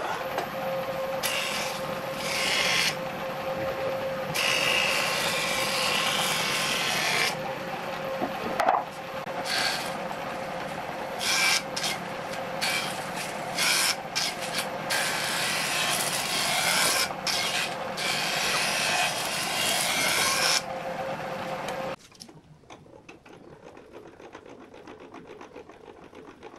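Combination woodworking machine's jointer running with a steady motor hum, a rough board fed over the spinning cutterhead in repeated passes, each pass a loud rushing cutting noise. The cutting stops about 20 seconds in and the sound drops away about two seconds later.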